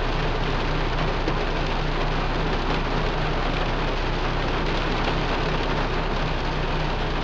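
Steady rushing of a Ford Focus's newly replaced cabin blower fan pushing cold air through the vents, mixed with heavy rain on the car and a low steady hum from the idling engine.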